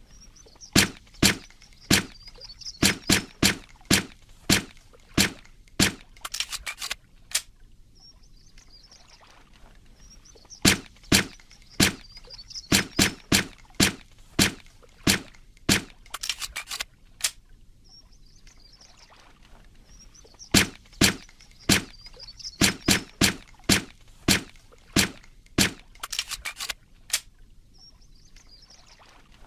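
Suppressed Walther PPK pistol firing. Each run is about a dozen sharp shots in an uneven rhythm, followed by a quick flurry of lighter clicks. The same run repeats three times, about every ten seconds.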